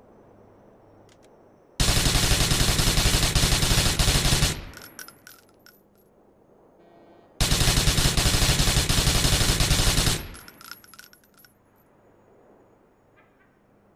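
Special Weapons MP-10 submachine gun firing two long full-auto bursts of about three seconds each, the second starting about three seconds after the first ends. A metallic tinkling of spent casings follows each burst.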